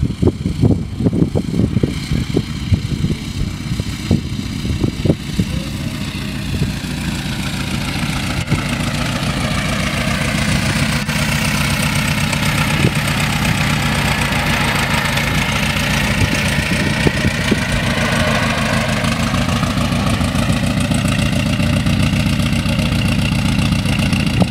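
1927 Ford Model T's four-cylinder engine running as the car drives by, growing louder as it comes close. There are irregular low thumps during the first few seconds.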